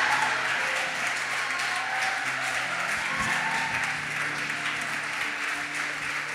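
A congregation applauding steadily, with soft held chords from a keyboard underneath that change every second or so.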